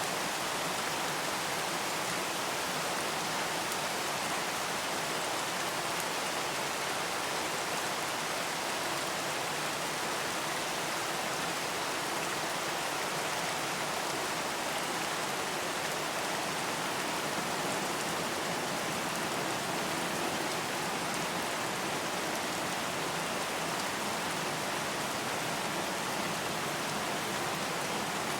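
Steady rain falling: an even, unbroken hiss of drops with no change in intensity.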